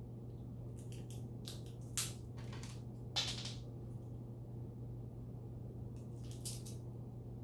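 Short bursts of crinkling and crackling, in three spells, over a steady low hum.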